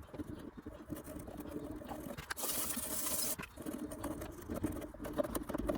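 A toothbrush scrubbing spackle off a wooden guitar headstock: light scratchy brushing, with one stronger scrubbing stroke about halfway through.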